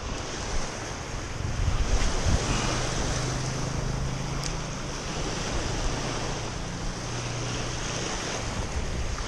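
Small waves breaking and washing over a pebble shoreline, with wind buffeting the microphone.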